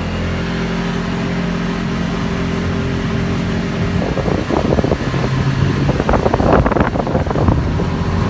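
Go-kart engine running with a steady hum, turning rougher and rattling from about halfway through as it takes throttle and pulls away.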